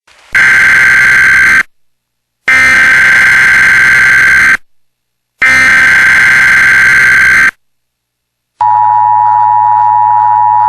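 Emergency Alert System broadcast: the SAME digital header, three loud bursts of buzzing data tones separated by short gaps, then, about two seconds before the end, the steady two-tone EAS attention signal begins.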